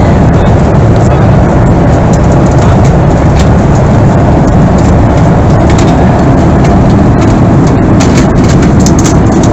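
Steady roar of cabin noise inside a Boeing 737-300 airliner, from its CFM56-3 turbofan engines and the airflow, heaviest in the low end, with a few faint clicks near the end.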